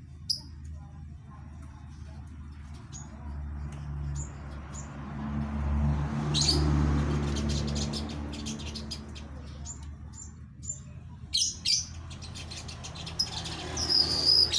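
Female weaver bird giving short high chirps, with several rapid chattering runs, her calls to a male. A low rumble runs underneath and swells in the middle.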